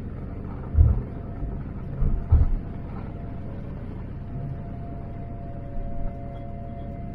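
Cabin noise of a Boeing 787-9 taxiing: a steady rumble from the engines and rolling gear, with a few short low thumps in the first three seconds. A thin steady engine whine comes in about halfway through.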